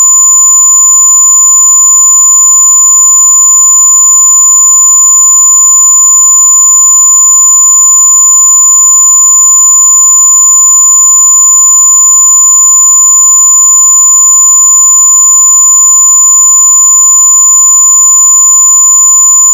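A harsh, very loud electronic tone held at one unchanging pitch, with a piercing higher whine over it and no breaks or pulses.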